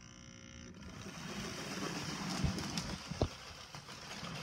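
Hornby model train locomotive running on its track, a very noisy runner. A steady electric hum gives way after about a second to a rough, rattling whir, with two knocks near the middle.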